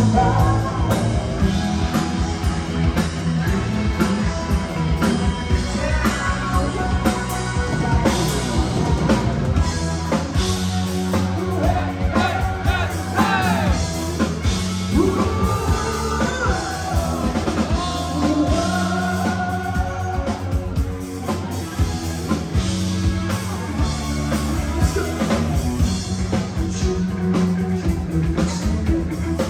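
Rock band playing live, with singing over drums and bass.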